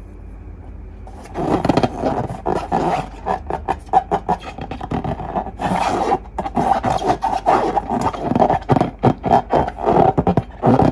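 Slime being squeezed and kneaded by hand: a dense, irregular run of sticky clicks, crackles and squelches that starts about a second in.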